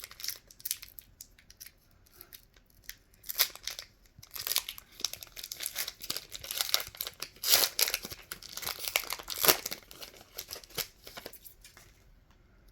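A Pokémon booster pack's foil wrapper being torn open and crinkled by hand, in irregular rustling bursts with several louder rips through the middle.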